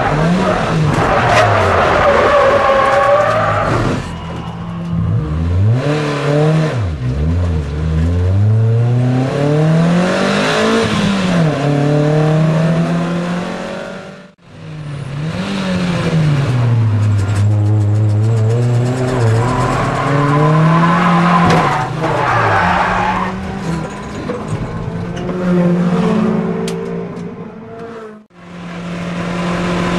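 Racing MG F's four-cylinder engine heard from inside the cabin, revving up and dropping away again and again through gear changes and lifts, with tyres squealing and skidding in places. The sound cuts out twice, briefly, about 14 and 28 seconds in.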